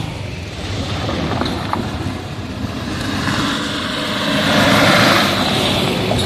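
A minibus and a car driving past, with engine and tyre noise that grows louder as the bus comes close, loudest about five seconds in.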